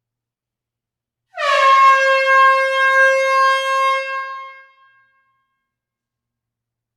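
Air horn sounding one long blast about a second in, dipping slightly in pitch as it starts, held for about three seconds, then fading away.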